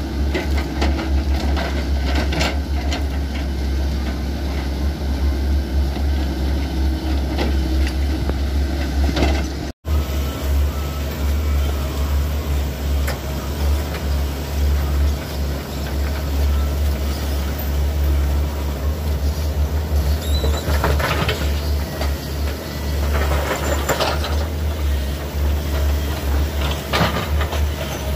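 Heavy diesel excavator engines running steadily under load while a sunk Sany SY135F excavator is worked out of a muddy ditch, with a deep steady hum. The sound drops out for an instant about ten seconds in, and a few louder noisy surges come near the end.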